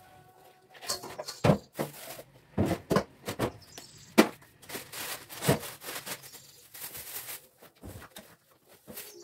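Kitchen handling sounds: an uneven series of sharp knocks and clinks as bowls, a pot and other kitchenware are picked up and set down on the counter.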